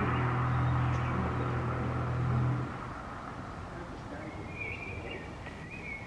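Vehicle engine running with a steady low hum, cutting off abruptly about two and a half seconds in; faint high bird calls follow near the end.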